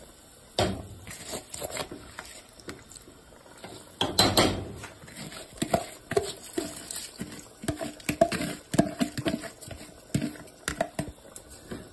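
Metal slotted spoon scooping soaked rice out of a plastic tub, knocking and scraping against the tub and the rim of a non-stick pan as the rice drops into boiling water. A string of short clicks and taps, with a louder clatter about four seconds in.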